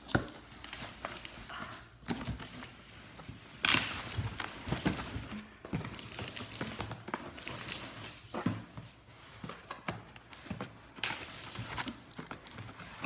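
Cardboard being handled: the boxed steamer scraping and sliding against the inside of its shipping carton, with irregular knocks and rustles and one louder scrape about four seconds in.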